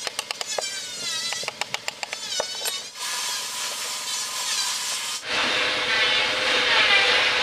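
Wood being carved by hand: quick sharp taps for the first few seconds, then from about five seconds in a louder, continuous rasping of a tool working across the wood.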